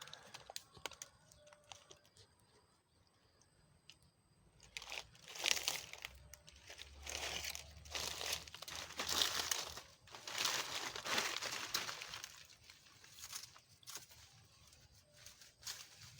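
Dry leaves and undergrowth rustling and crunching in irregular bursts, starting a few seconds in after a quiet stretch.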